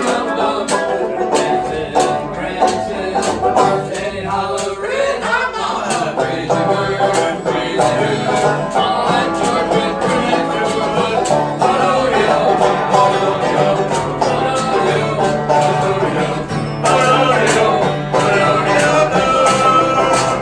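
Jug band playing a lively country-style tune on plucked strings, with some singing.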